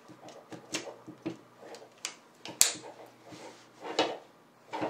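Scattered small clicks and knocks from a GoPro camera being handled and fitted back together, with one sharp snap about two and a half seconds in.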